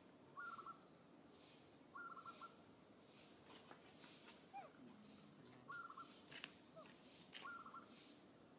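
Faint outdoor animal calls: a short trilled chirp repeated about every one and a half seconds, over a steady thin high whine, with one falling squeak near the middle.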